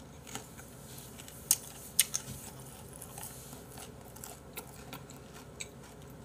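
A person chewing food close to the microphone, with two sharp crunchy clicks about a second and a half and two seconds in and a few fainter ones later.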